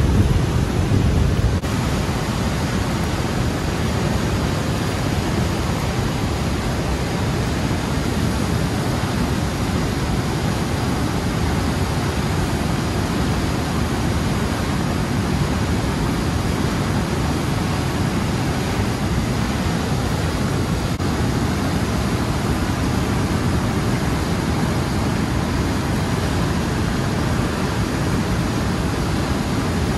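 Turbulent water rushing in the outflow below a river dam: a steady, even rush with no let-up, a little louder in the first second or two.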